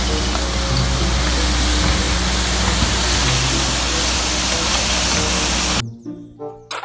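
Road sweeper truck running and sweeping: a loud, steady rushing noise over a low engine drone. It cuts off abruptly near the end, giving way to music.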